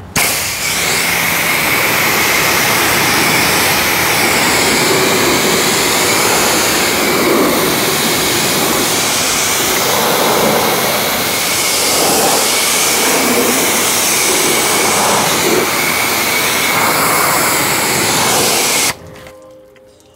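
Pressure washer spraying water onto a car's paintwork, a loud steady hiss with a high whine running through it, cutting off suddenly near the end and leaving only dripping.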